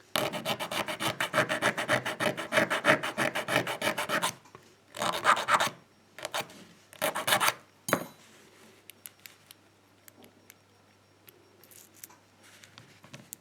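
Hand file rasping quickly across a key blank, cutting the last position of the key's bitting. There are fast, even strokes for about four seconds, then three short bursts and a click, after which the filing stops.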